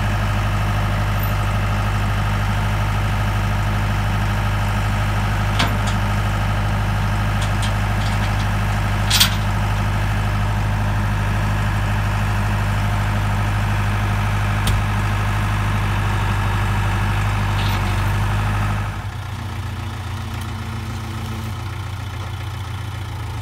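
Farm tractor engine running steadily, with a few sharp knocks along the way; about nineteen seconds in it becomes quieter and its note changes.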